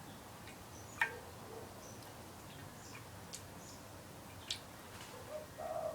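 Pet birds in an aviary: a few sharp taps and clicks, the loudest about a second in, with brief high chirps and a soft low coo near the end.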